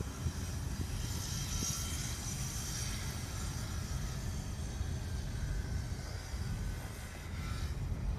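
Car cabin noise while driving: a steady low rumble of engine and tyres heard from inside the car, with a faint hiss of air over it.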